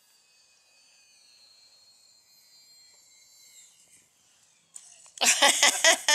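Faint high whine of the small electric RC Sport Cub's motor on landing approach, dropping in pitch as it is throttled back about three and a half seconds in. Near the end a person laughs loudly in short, rhythmic bursts.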